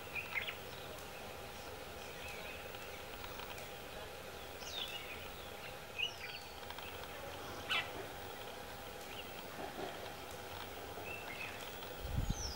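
Scattered short bird chirps and a few whistles falling in pitch, over a faint steady hum; a low rumble about 12 seconds in.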